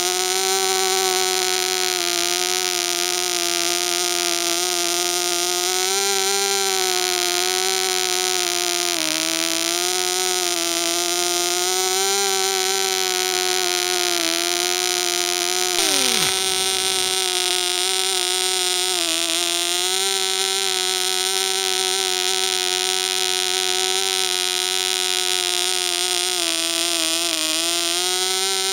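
AE 0.1cc model diesel engine running at high speed with its propeller, a steady high buzz. Its pitch dips and recovers slightly several times as its prototype throttle is worked. A brief falling swoop comes about halfway through.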